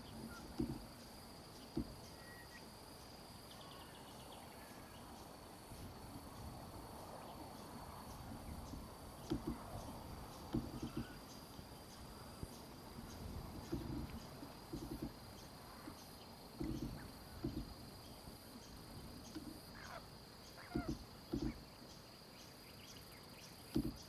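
Insect trill: a steady high tone with evenly repeated ticks, dropping out briefly twice. Under it is a low hiss with a dozen or so dull low bumps at irregular intervals, the loudest sounds here.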